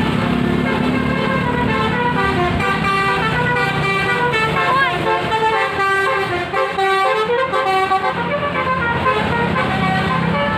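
Bus 'telolet' musical horn playing a quick tune of many short notes that jump up and down in pitch, over the low running of the bus engine.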